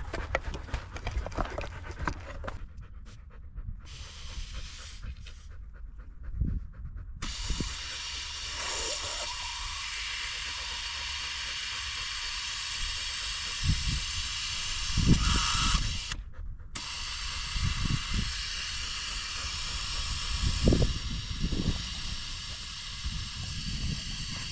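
A dog panting, with low thumps throughout and a steady hiss that comes in about seven seconds in.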